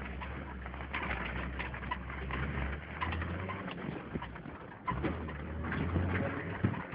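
Cabin noise of a Mercedes-Benz G-Class 'Wolf' driving off-road over a rough dirt track: a low engine drone that eases off for a moment and picks up again, with frequent knocks and rattles from the body and load as it bumps along.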